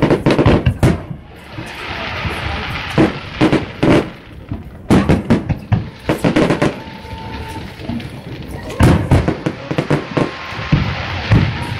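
Aerial fireworks bursting in rapid volleys of sharp bangs, four clusters over a dozen seconds, with a crackling hiss between the volleys.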